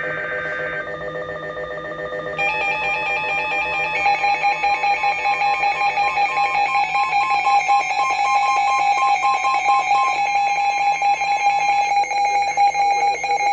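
Emergency Alert System tones on NOAA Weather Radio: a brief burst of warbling SAME data code, then a steady, loud two-tone attention signal from about two seconds in, announcing a severe thunderstorm warning.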